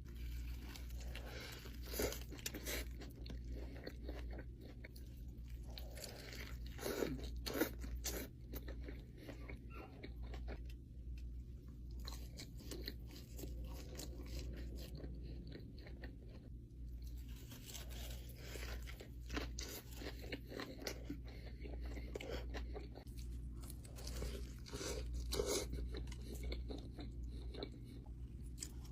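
A person biting into and chewing crispy fried food close to the microphone: irregular crunches throughout, the loudest about 2 seconds in, around 7 to 8 seconds in, and near 25 seconds in. A steady low hum runs underneath.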